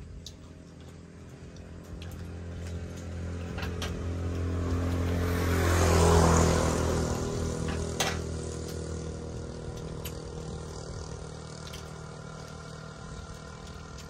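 A motor vehicle's engine passing by, growing louder to its loudest about six seconds in and then fading away. A sharp click about eight seconds in.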